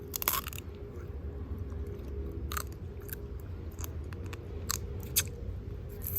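Cooked crab shell and legs cracking and crunching between teeth, with chewing in between; a handful of sharp cracks, the loudest in the first second.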